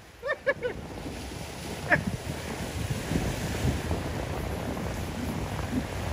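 Surf washing and breaking against the rocks of a jetty, with wind buffeting the microphone. Near the start there is a quick run of three or four short, pitched calls, and a single sharp call about two seconds in.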